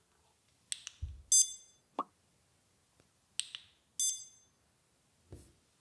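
Shelly BLU Button1 pressed twice. Each press is a small click, followed about half a second later by a short high-pitched electronic beep.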